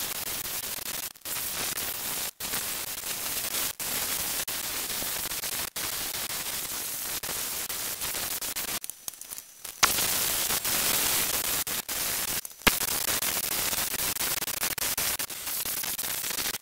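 Pneumatic die grinder running steadily as it grinds the intake ports of an aluminium VW 1.8T 20-valve cylinder head, an even high hiss broken by several short pauses.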